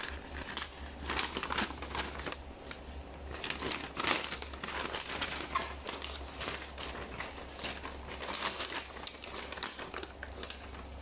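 A large folded paper instruction leaflet being opened out and handled, its sheets crinkling and rustling irregularly.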